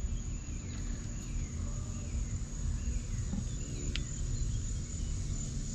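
Steady high-pitched insect trill, such as crickets, over a low outdoor rumble, with a single sharp click about four seconds in.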